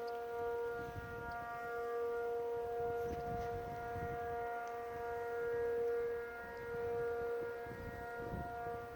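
Outdoor civil defense warning sirens sounding a steady, unchanging tone of several pitches at once. The sound swells and fades every couple of seconds.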